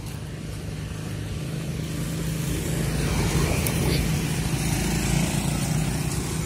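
Motorcycle engine running steadily as it approaches and passes, growing louder through the middle and easing off a little near the end.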